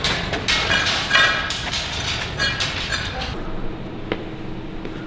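Steel plate and hoist chain clinking and rattling as a welded steel boat-building cradle is lifted on a chain hoist. After about three seconds this gives way to a steady low hum with a single sharp click.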